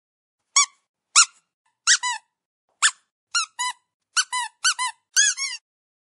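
Squeaky dog toy squeezed again and again, starting about half a second in: short, high squeaks that rise and fall in pitch, single at first, then coming faster in pairs.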